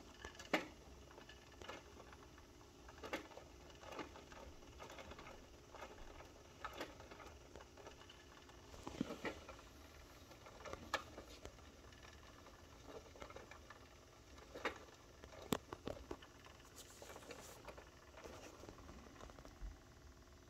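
Irregular soft taps, clicks and scuffles of a kitten moving about and pawing in a wire crate, with a few sharper clicks scattered through.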